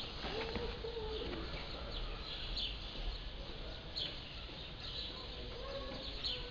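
Birds chirping over outdoor street ambience: a few short, high, falling chirps, each about a second and a half apart.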